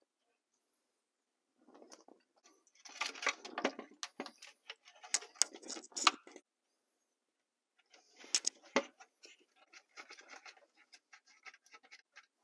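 Small clicks, taps and rattles of a plastic dash panel and its wiring being handled while an indicator light is pressed into place, in two spells of a few seconds each.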